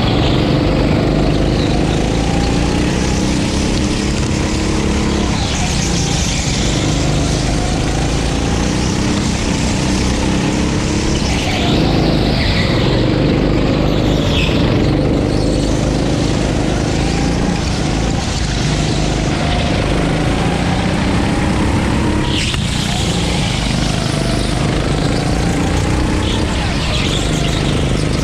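9 hp gas racing kart engine running hard on track, its pitch rising and falling over and over as it accelerates and lifts off through the corners.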